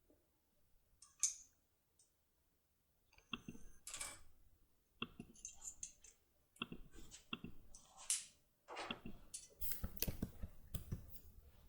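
Irregular clicking and rattling from a Securemme K75 lockpick being handled and worked with a lock, in short clusters of sharp clicks.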